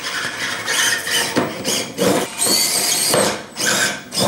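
Micro RC crawler's small electric motor and drivetrain whining in short, uneven bursts as it is throttled up a steep wooden ramp.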